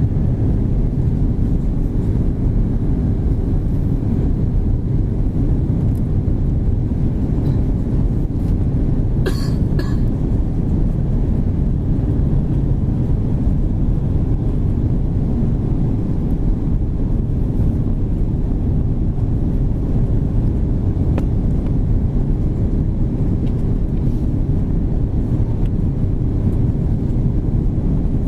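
Airbus A330-200 cabin noise on approach: a steady, loud rumble of engines and airflow with a constant low hum running through it. A brief double click sounds about nine seconds in.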